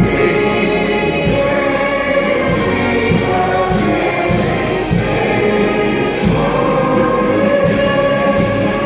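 A large crowd singing a song together in unison, loud and sustained, in a big echoing gym.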